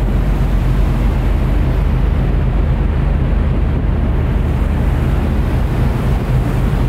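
Wind blowing on the microphone on the deck of a ferry under way: a loud, steady rushing, with a deep rumble underneath from the ship's engines and the sea along the hull.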